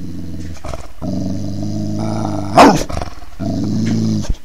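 Security deterrent noise from a surveillance loudspeaker: a loud, low, buzzing growl in stretches broken by short gaps, with a sharp squeal that glides down and back up about two and a half seconds in, the loudest moment; it cuts off abruptly near the end.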